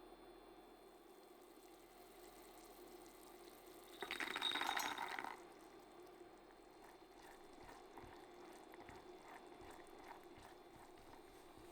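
Kitchen prep sounds: a brief burst of clinking, with a ringing note, about four seconds in, followed by faint light taps.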